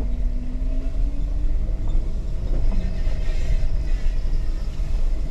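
Jeep running slowly over a rocky mountain trail, with a steady low rumble. The engine note rises slowly over the first couple of seconds.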